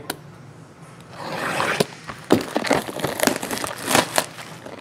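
Clear plastic shrink-wrap being torn off a trading-card hobby box, crinkling with sharp crackles and snaps that start about a second in.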